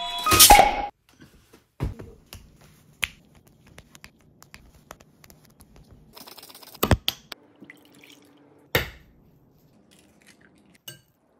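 Kitchen food-preparation sounds: a short loud rustling burst at the start, then scattered sharp taps and clicks, one every second or so, over faint handling noise.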